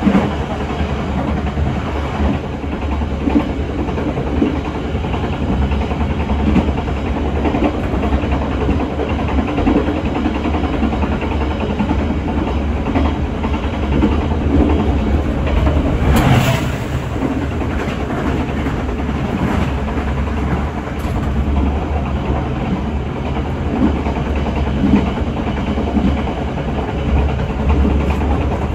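Locomotive-hauled passenger train running along the track, heard from the rear of the train: a steady rumble of wheels on rail, with a brief louder burst of noise about 16 seconds in.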